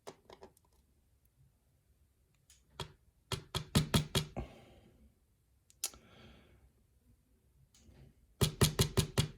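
Sharp, quick taps and knocks from metal lock parts being handled during the disassembly of a pin-tumbler challenge lock. They come in two runs of about half a dozen, a few seconds apart.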